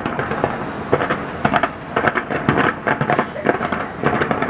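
Aerial fireworks going off in a rapid, irregular series of booming bursts and crackles.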